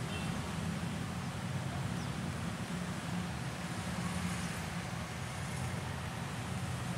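Diesel locomotive's engine running with a steady low drone as the train approaches.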